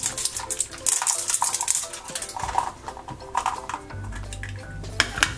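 Crinkling plastic wrap being peeled and torn off a small hard-plastic Teenie Genies genie bottle, with irregular clicks and taps as the bottle is handled.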